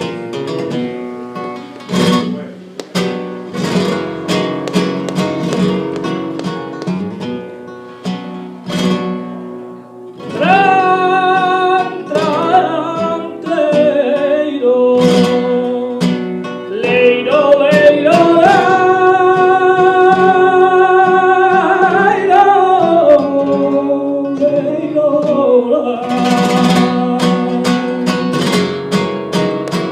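Flamenco guitar playing a farruca, with sharp strummed chord strokes. About ten seconds in, a singer comes in with long, held, sliding notes over the guitar. Near the end the guitar carries on alone with strummed strokes.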